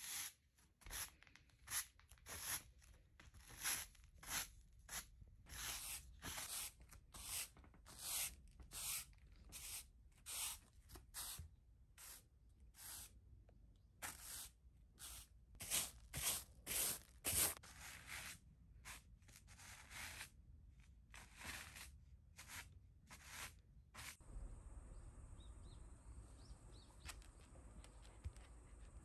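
A black cat making a long series of short rasping, tearing sounds, about one or two a second, that stop near the end.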